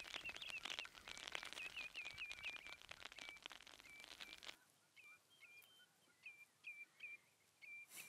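Common snipe calling faintly, a run of short, hooked notes repeated two or three times a second. Light rain patters over the first half and stops about halfway through.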